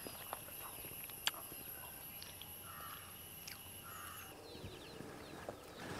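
Faint outdoor ambience: a steady, very high insect whine that stops about two-thirds of the way through, a few soft bird chirps and occasional light clicks.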